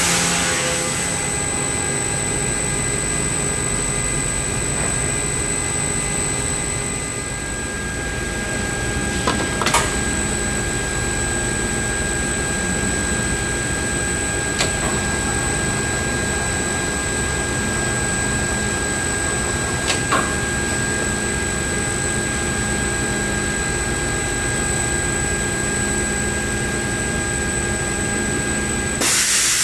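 Three-roll angle bending machine running steadily, a constant hum with a steady high whine. A few short sharp clicks come about 10, 15 and 20 seconds in.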